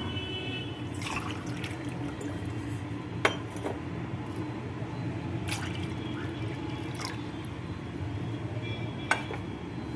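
Water being poured into a cooking pot in a steady stream, with a few sharp clinks scattered through it.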